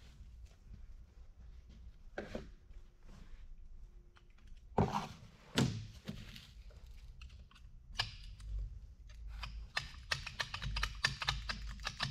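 Metal clicks and knocks from a pry tool worked inside a Carraro transmission clutch drum, trying to free a pressure plate stuck on a ridge worn into the drum. Two louder knocks about five seconds in, then a run of quick light clicks near the end.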